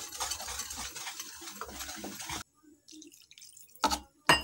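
Water pouring from a glass into buckwheat flour in a bowl while it is stirred into batter, a steady splashing hiss that cuts off abruptly about two and a half seconds in. Near the end come two sharp knocks as a wire whisk works against the bowl.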